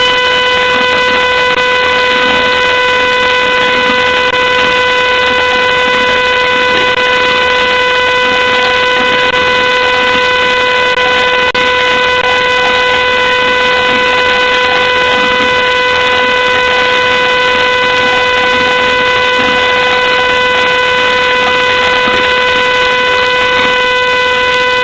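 Ring security camera giving off a strange, continuous electronic tone: one steady mid-pitched note with a buzzy edge that holds unchanged and unbroken.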